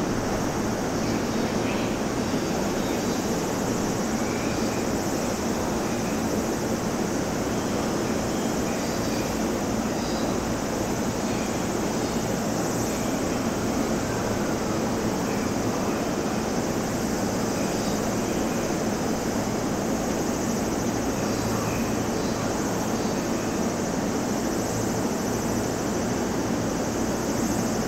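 Steady mechanical drone of a JR East E233-5000 series electric train creeping into the platform and standing, its on-board equipment humming with no sudden sounds.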